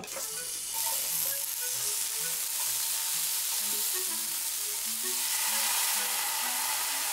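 Slices of beef sizzling on a hot yakiniku grill, a steady hiss that grows a little louder about a second in. Faint background music notes run underneath.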